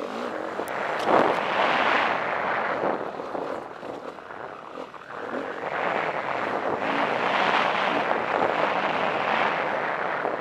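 KTM 350 EXC dirt bike's single-cylinder four-stroke engine running as it rides a dirt singletrack, heard from a helmet camera with wind and trail noise mixed in. The sound eases off briefly around the middle and then builds again.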